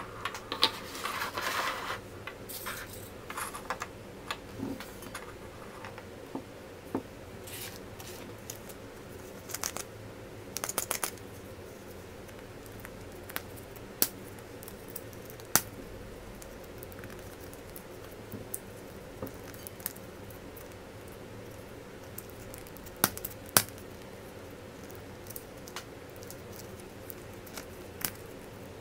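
Hands handling small plastic toys and wrappers from surprise eggs: a crinkling rustle in the first two seconds, then scattered sharp clicks and taps of plastic pieces, a quick run of clicks about eleven seconds in and the loudest ones near the end.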